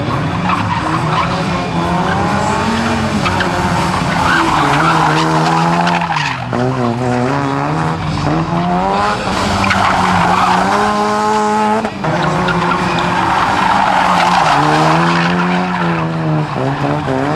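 Rally car engine revving up and down over and over, its pitch climbing and falling every few seconds, with tyres squealing as the car slides.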